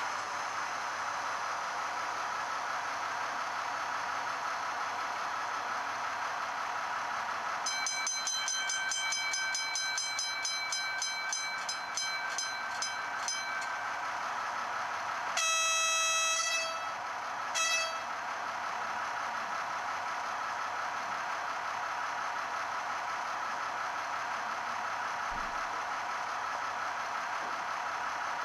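Digital sound from an ESU LokSound 4 decoder played through the tiny speaker of an H0-scale ADE Henschel DH 500 Ca model diesel locomotive: a steady diesel idle, with a bell ringing about three strokes a second for some six seconds, then a horn blast of about a second and a half and a short toot. This is the decoder's signal test of horn and bell while the engine sound idles.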